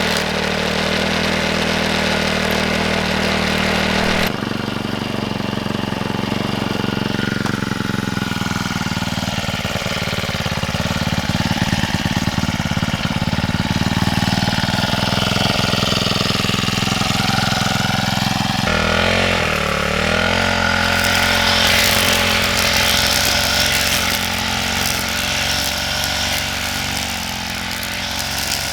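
A small engine running steadily, its sound changing abruptly about four seconds in and again about two-thirds of the way through.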